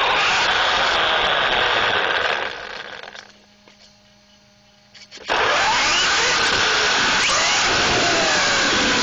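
Traxxas Slash 4x4 RC truck driving fast on concrete, heard from on board: a loud rush of tyre and drivetrain noise with electric motor whine rising and falling in pitch. The noise eases off about two and a half seconds in and drops almost to nothing but a low steady hum, then comes back abruptly just past five seconds as the truck speeds off again.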